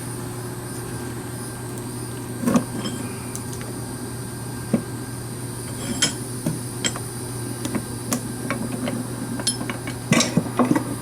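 Scattered metal clinks and knocks, with a cluster near the end, from an old handmade blacksmith post vise being handled and its spring shifted out of the way, over a steady low background hum.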